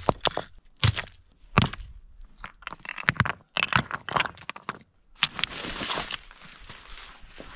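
River rocks being set down on a pile of stones, knocking together in a series of sharp clacks, followed about five seconds in by a longer crunching scrape.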